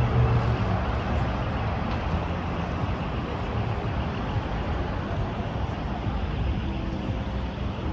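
Steady city traffic noise: a low rumble of passing road vehicles.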